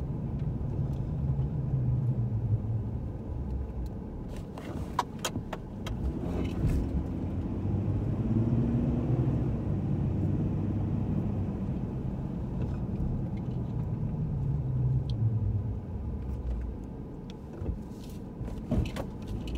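Car driving slowly, heard from inside the cabin: a steady low rumble of engine and tyres, with a few sharp clicks or rattles about five seconds in and again near the end.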